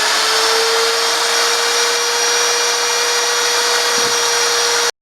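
Lathe-mounted tool post grinder's electric motor running at speed: a steady high whine over a hiss, its pitch still rising slightly in the first second as it finishes spinning up. The sound cuts off abruptly near the end.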